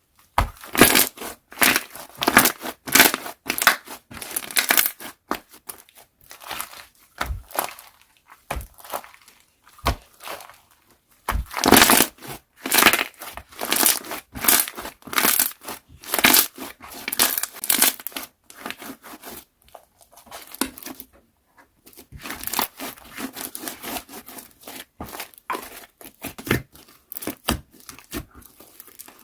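Slime being squeezed, pressed and stretched by hand, giving dense runs of wet crackles and clicks from air pockets popping, with a short lull about two-thirds of the way through.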